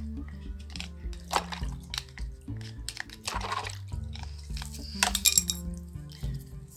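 Background music over scraping and clinking as a knife and toothbrush work caked dough off parts of a Bosch dough mixer, with a scrape near the middle and a few sharp clinks about five seconds in.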